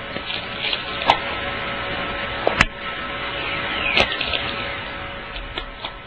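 Recording of natural radio noise captured during a geomagnetic storm: a steady crackling hiss broken by three sharp pops about a second and a half apart, with a short falling whistle just before the last pop. The pops are what the hosts take to be the moment a ball of light appeared.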